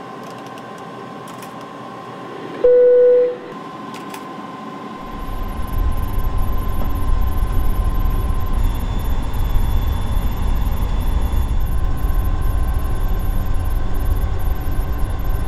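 Steady flight-deck hum, broken about two and a half seconds in by a single loud electronic beep lasting under a second. From about five seconds a deep rumble comes in and continues.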